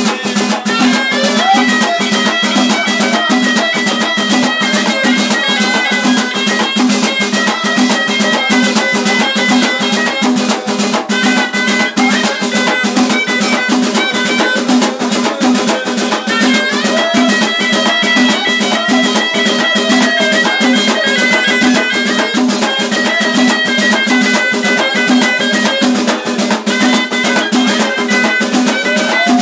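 Live Moroccan hit folk music: a ghaita (reed shawm) plays a held, ornamented high melody over a fast, dense beat from a stick-beaten tbel drum and frame drums (bendir and tambourine).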